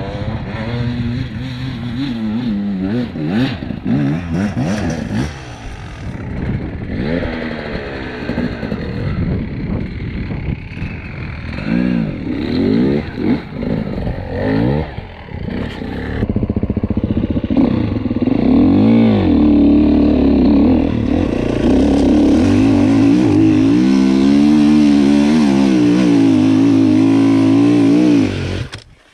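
Beta enduro motorcycle engine revving up and down again and again, its pitch rising and falling with the throttle. From a little over halfway through it runs louder and steadier at higher revs.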